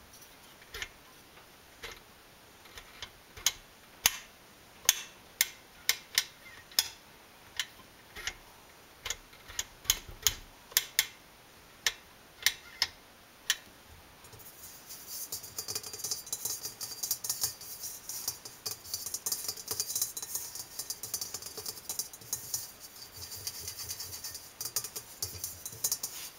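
Fingers tapping on the metal body of a KitchenAid Ultra Power stand mixer that is switched off: single sharp taps, about one or two a second. About halfway through the taps give way to fast, continuous scratching and rubbing on the metal.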